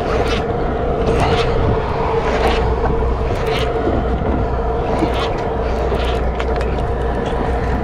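Sportfishing boat's engine running with a steady drone under wind and water noise. Over it come short scratchy sounds every second or so as a lever-drag conventional reel is cranked in.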